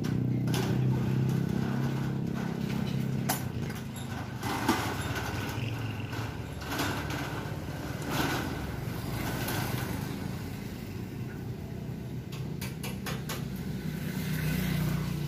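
Steel roll-up shutter door being pushed up by hand, its slats clanking and rattling as it rolls up, with a series of sharp clicks through the middle. An engine hums in the background, loudest at the start and again near the end.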